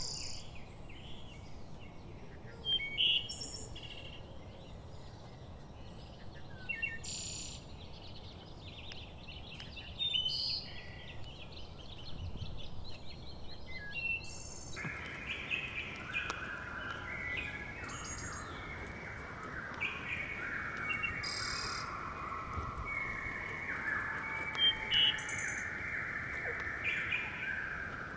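Wild forest birds chirping and calling in short high notes. About halfway in, a dense run of lower, rapidly repeated trilling notes starts up and carries on.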